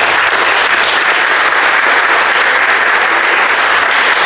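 Audience applause, a dense and steady clapping.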